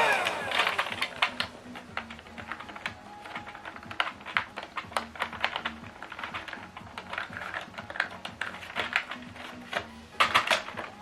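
Small toy vacuum cleaner motor winding down and stopping, followed by irregular light clicks and taps of hard plastic being handled, with a quick flurry of louder clicks near the end.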